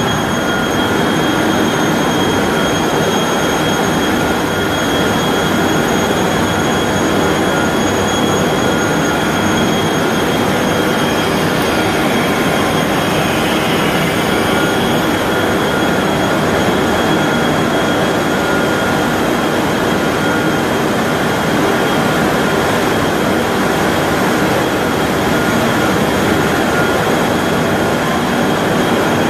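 3200 mm copy-paper-making machine running: a loud, steady mechanical noise with several constant high-pitched whines over it.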